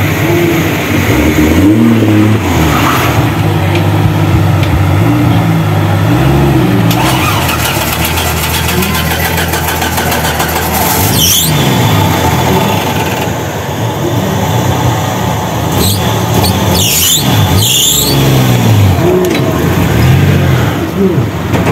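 Engines of tube-frame off-road racing buggies running and being revved up and down repeatedly, with sharp revs about eleven seconds in and twice more near the end.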